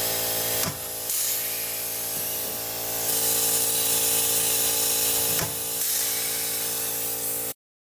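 Pneumatic pop-rivet gun setting rivets into the steel bed panel: a steady air hiss over a constant hum, with a few sharp snaps as rivets are pulled, twice clearly and once faintly. It cuts off abruptly near the end.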